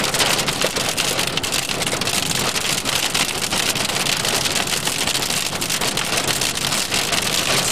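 Rain drumming on a car's roof and windshield, heard from inside the cabin: a dense, steady hiss full of fine ticks of drops.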